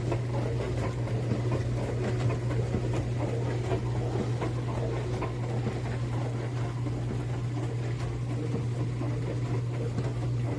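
HAVA countertop dishwasher running: a steady low motor hum with a busy, uneven sound over it.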